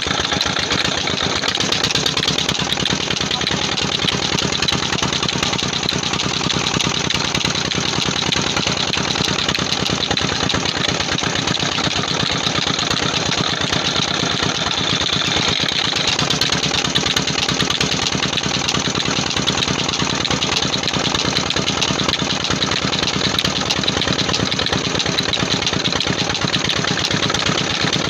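20 hp Nayab diesel engine running steadily with a fast, even beat, driving a water pump through a flat belt.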